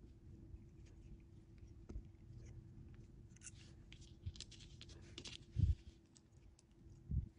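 Small metal clicks and scratchy scrapes of safety-pin wire being handled and bent with needle-nose pliers, with two dull low thumps in the second half. A faint steady hum sits underneath.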